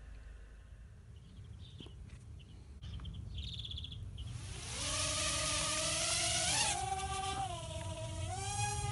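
Micro quadcopter's small electric motors and propellers spinning up about halfway through into a high buzzing whine over a rush of noise as it lifts off. The pitch then steps up and down a few times as the throttle is worked.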